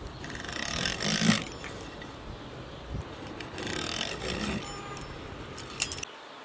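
Fluted pastry wheel rolling through a thin sheet of rolled dough in two rasping strokes, each about a second long. A short sharp click comes near the end.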